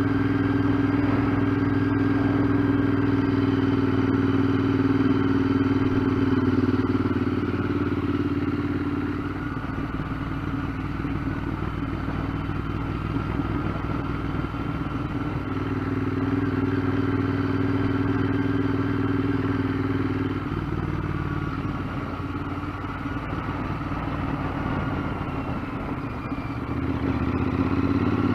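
Royal Enfield Interceptor 650's parallel-twin engine running as the bike rides along, heard from inside the rider's helmet. The engine note drops off about nine seconds in, picks up again, drops once more about two-thirds of the way through, and comes back strongly near the end.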